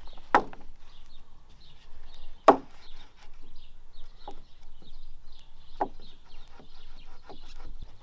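Freshly sawn pine boards being laid onto a stacked lumber pile: a handful of separate wooden knocks and clacks as board strikes board, the loudest about two and a half seconds in.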